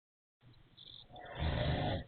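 Wheezy snoring: one loud snore that builds about a second in and stops abruptly.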